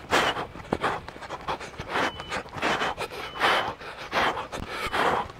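Heavy, rhythmic breathing under exertion, with a noisy breath roughly every second or less, and a few light knocks in between.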